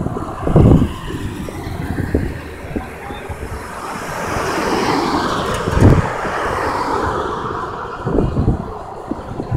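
Wind buffeting the microphone in gusts, over road traffic noise that swells and fades once around the middle, like a vehicle passing by.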